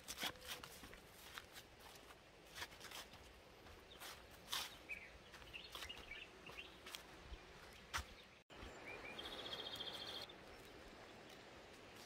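Quiet footsteps and brushing of vegetation on a grassy hillside trail, with a few faint bird chirps. Near the end a bird gives a short, rapid high trill lasting about a second.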